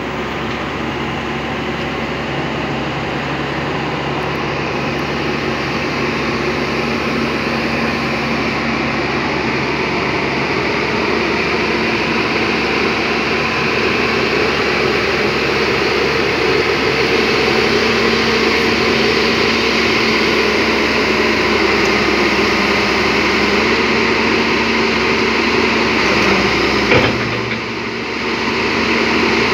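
Tracked JCB excavator's diesel engine running steadily under load as the machine drives down off a flatbed truck, with a single loud clunk near the end.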